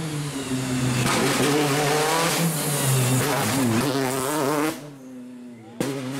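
Peugeot 208 T16 rally car's turbocharged four-cylinder engine at full race revs through a corner, its note rising and falling with throttle and gear changes before dropping away about four and a half seconds in. After an abrupt cut near the end, the engine is heard revving again.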